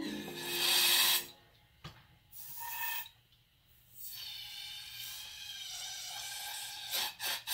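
Bursts of spray hissing while carburetor parts are cleaned: a loud burst of about a second, a shorter one, then a longer, softer one. A few quick clicks or scrapes come near the end.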